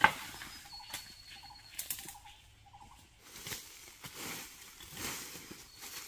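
A sharp crack at the start, then crackling and rustling of dry bamboo leaves and stems as a person works through a bamboo thicket with a long-handled digging tool. Quick repeated chirping notes from a bird sound in the background during the first couple of seconds.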